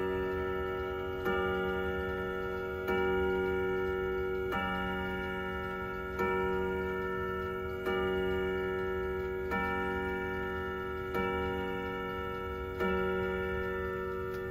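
Howard Miller Jenison wall clock striking the hour on its chime rods at twelve o'clock. Single deep bongs come evenly about every second and a half, each ringing on and fading before the next.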